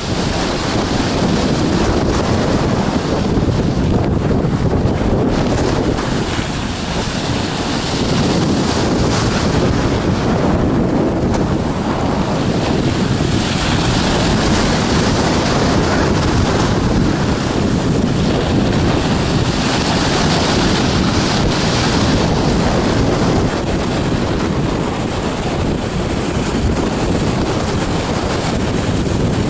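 A sailing yacht's bow pushes through heavy seas, with water rushing and spray splashing along the hull as strong wind buffets the microphone. The noise swells and eases every few seconds as the bow meets each wave.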